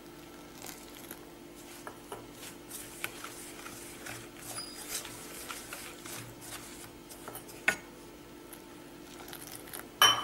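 Fingers mixing finger millet and idiyappam flour with hot water in a steel bowl: soft rustling and squishing with scattered light clicks, over a faint steady hum. There is a sharp click a little before the end and a louder knock at the very end.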